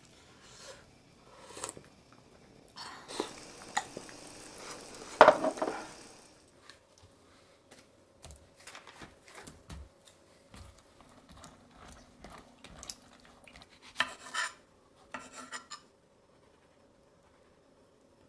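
Kitchen sounds: a pot of hot-pot broth on the burner hisses steadily with utensils clinking against it, with one louder clank about five seconds in. After that come scattered light clicks and knocks of dishes and food being handled on a counter over a faint steady hum, fading out near the end.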